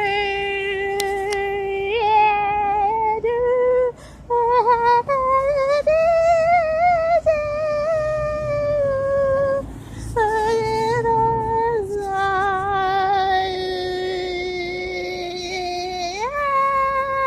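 A voice singing or humming long, wordless held notes, with brief breaks between them. The pitch wavers on some notes and slides upward near the end.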